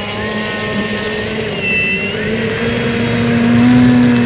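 DJI FPV racing drone's electric motors and propellers humming steadily close to the camera, the pitch stepping up slightly about halfway through.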